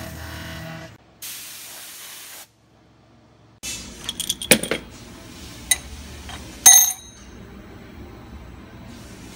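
A short hiss lasting about a second, then a pause, then several sharp metallic clinks and taps that ring briefly, the loudest near the end.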